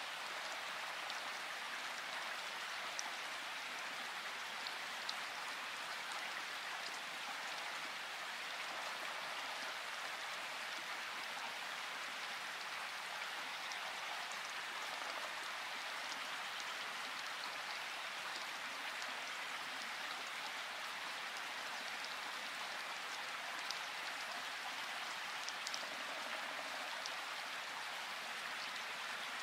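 Light rain falling steadily, an even hiss with a few faint, sharper drop ticks scattered through it.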